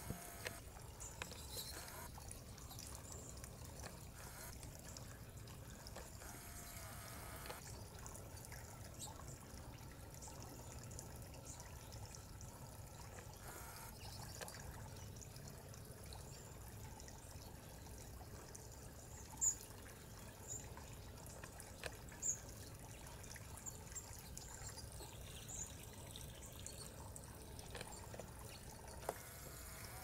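Tiered garden bird-bath fountain trickling faintly, water falling from its tiers into the basin. A few short, high-pitched bird chirps come about two-thirds of the way through.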